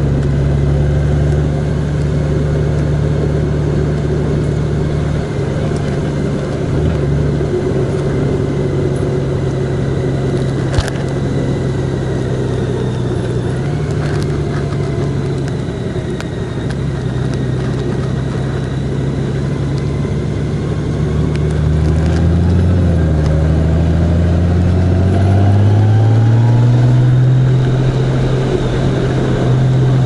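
A motor vehicle's engine running under way, with road noise. The engine note holds steady for long stretches, dips and shifts a few times, then rises in pitch about three quarters of the way through. There is a single sharp click near the middle.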